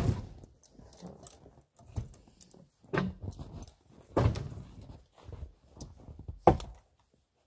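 Birch firewood logs being tossed and set onto a stacked sled load: a series of dull wooden knocks about every second or two, with shuffling and handling noise between.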